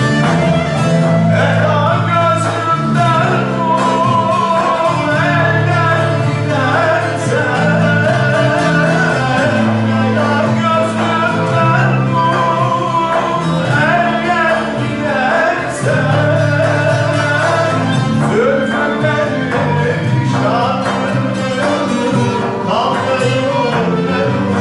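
Turkish folk music played live by an ensemble of bağlamas (long-necked saz lutes) and a bowed cello, with a man singing the melody over them.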